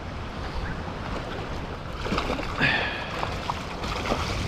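Shallow saltwater sloshing and lapping around a wading angler's legs, over a steady wind rumble on the microphone, with a brief louder splash about two and a half seconds in.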